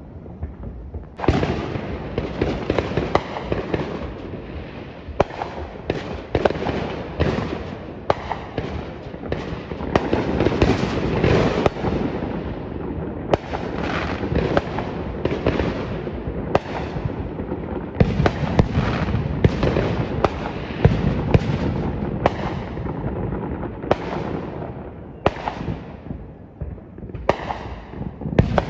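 Many fireworks going off at once, a near-continuous string of bangs, pops and crackles with no pause, growing denser about a second in.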